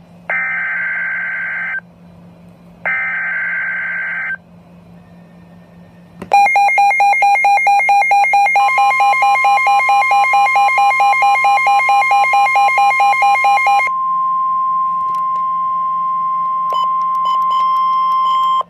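Emergency Alert System broadcast alert: two bursts of SAME header data, each a buzzy digital screech about a second and a half long. A loud, rapidly pulsing beeping alarm tone follows from about six seconds. A steady 1050 Hz weather-radio warning tone joins it a couple of seconds later and carries on alone after the pulsing stops near fourteen seconds, over a low steady hum.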